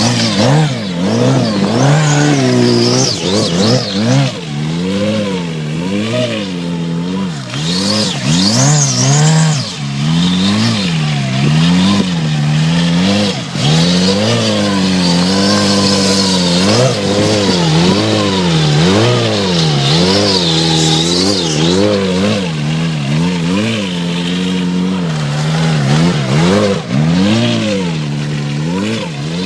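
Motorcycle engine revved up and down again and again, its pitch rising and falling about once a second, with a high hiss over it through the middle stretch.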